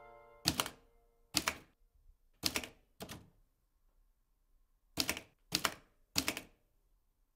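Typewriter keys striking one at a time, four strikes, then after a pause of about two seconds three more, each with a brief echo.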